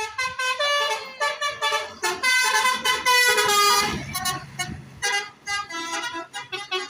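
A bus's telolet horn, the multi-tone horn used on Indonesian buses, playing a quick tune of short notes that step up and down in pitch, loudest about two to four seconds in. Engine noise swells briefly near four seconds in.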